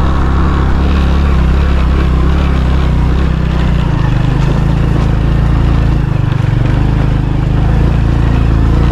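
Vehicle engine running steadily with a deep drone while climbing a rough mountain track; the low note weakens briefly about six seconds in.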